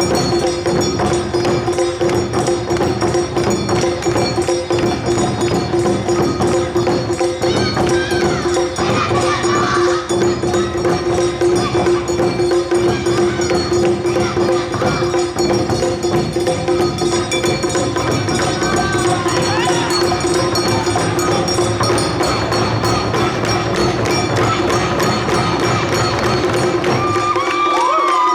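Awa Odori festival music: a dense, driving rhythm of drums and a clanging hand gong, with a steady held tone, and a flute sliding in briefly about a third of the way in, two thirds in and near the end.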